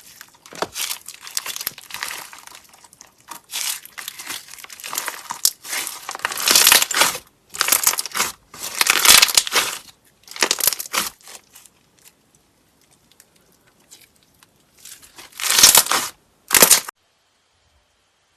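Slime being squeezed and pressed by hand, making a run of irregular crackling, crinkling strokes with short pauses. It stops abruptly about seventeen seconds in.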